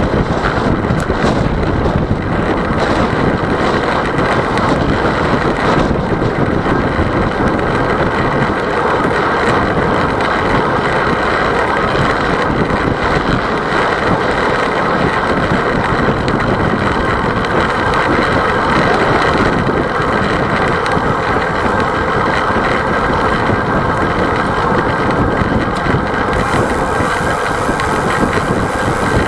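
Steady wind rushing over a bike-mounted camera's microphone while riding a road bicycle at speed, mixed with tyre and road noise. A thin high hiss joins near the end.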